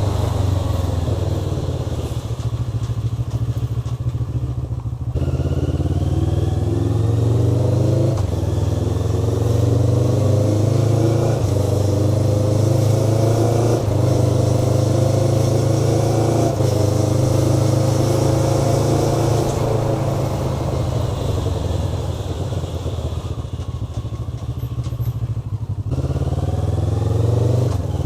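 Motorcycle engine under way, its pitch climbing and then dropping back several times as the bike pulls through the gears, over a heavy low rumble.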